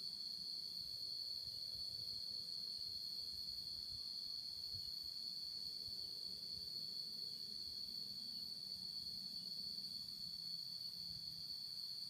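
Steady, unbroken high-pitched chorus of insects, over a faint low rumble.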